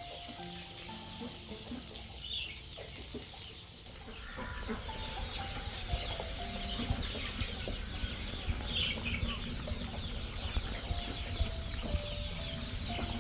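Chickens clucking and scratching about, with soft background music playing a slow stepping melody.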